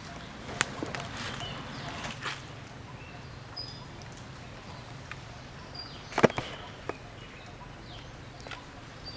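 Outdoor background with a few sharp clicks, the loudest about six seconds in, and brief high chirps.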